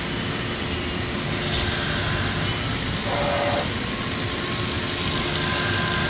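A Matsuura MC 560V vertical machining center running a drilling cycle: a steady mechanical hum and hiss with a few faint steady whining tones, and a short higher-pitched sound about three seconds in.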